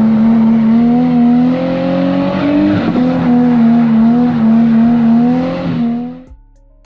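Nissan 350Z's 3.5-litre V6 running at steady high revs through a loud aftermarket exhaust, heard from inside the cabin, with a brief dip about three seconds in. The engine fades out about six seconds in and faint music begins.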